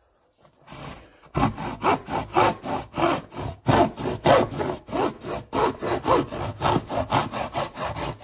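Hand hacksaw cutting a piece off a plastic golf cart air box, in steady back-and-forth strokes about three a second. The strokes start about a second and a half in.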